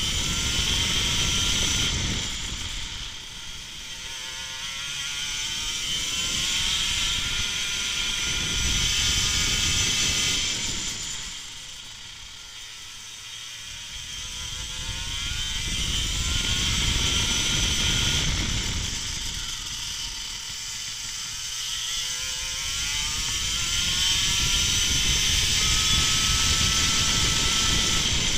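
Racing kart engine heard from on board, rising steadily in pitch as it accelerates and dropping away three times as the kart slows for corners, under a constant rush of wind noise.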